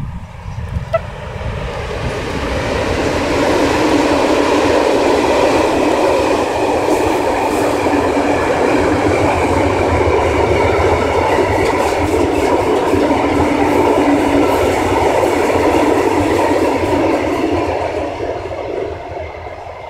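Long freight train of tank wagons passing close by: a steady rumble and rattle of wagon wheels over the rails, building over the first few seconds and fading near the end as the train runs away.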